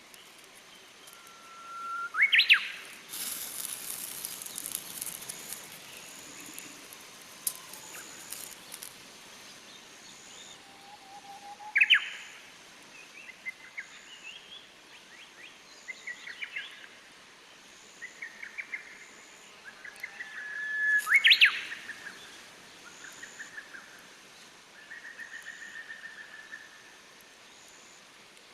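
Japanese bush warbler (uguisu) singing its song three times: each is a held whistle that breaks into a quick rising flourish. Softer chirps and trills from other small birds fill the gaps. There are a few seconds of crackling near the start.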